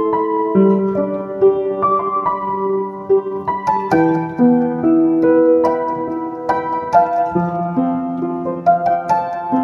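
Keyboard playing slow music in a piano sound: held chords under single melody notes that change about once a second, with no voice.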